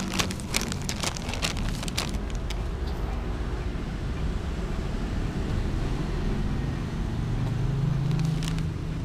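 Plastic carrier bag and foil cat-food pouch crinkling as they are handled, thickest for the first two seconds or so and again briefly near the end, over a steady low rumble of motor traffic.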